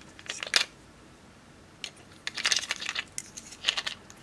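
Small plastic containers clicking and rattling as they are opened and handled: a strawberry-shaped plastic case and a small clear jar of glitter. There are two clicks about half a second in, a quick run of clicks and rattles from about two to three seconds in, and a few more clicks near the end.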